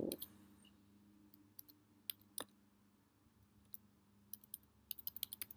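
Computer keyboard keystrokes: a few scattered key presses, then a quick run of typing near the end.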